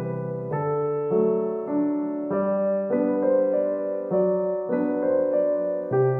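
Background piano music: soft keyboard chords changing about every half second.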